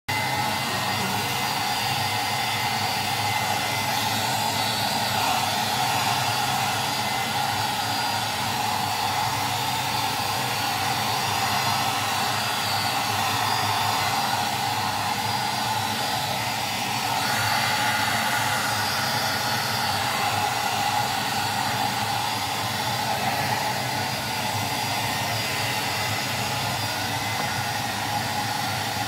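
Handheld hair dryer blowing steadily on a dog's thick, fluffy coat, its pitch shifting slightly a little past halfway as it is moved.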